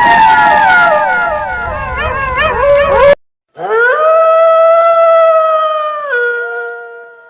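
A wolf chorus: several overlapping, wavering howls that cut off abruptly about three seconds in. After a short gap, a single long wolf howl rises, holds steady, then drops a step in pitch and fades away.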